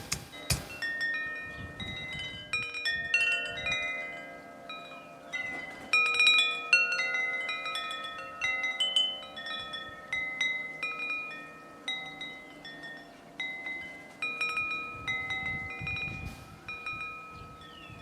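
Wind chimes ringing: many clear metal tones at different pitches struck at random and overlapping, each ringing on and slowly fading.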